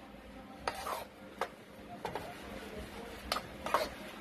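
Utensil stirring mashed potatoes in a stainless steel bowl, knocking and scraping against the metal with a handful of irregular clicks.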